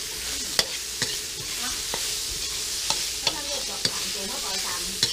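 Apple snail meat and chili paste sizzling in a metal wok as a metal spoon stirs them, scraping along the pan with several sharp clinks against the metal.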